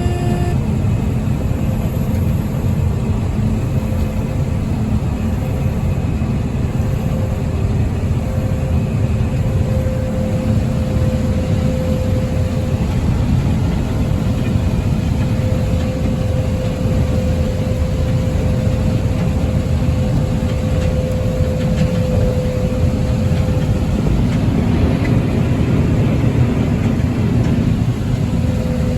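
Combine harvester running steadily under load while harvesting corn, with a steady whine over the deep machine noise through much of the stretch.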